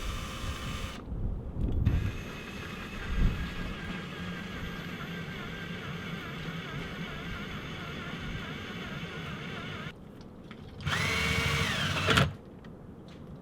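Power drill boring into a green, unhusked coconut. A short run at the start and a steadier, quieter stretch of whirring are followed near the end by a louder run of about a second that winds down.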